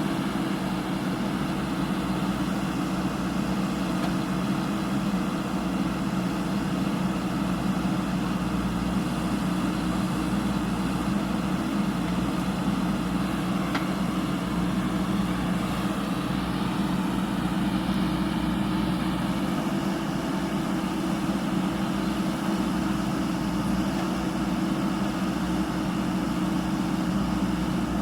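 JCB 3DX backhoe loader's diesel engine running steadily with an even hum.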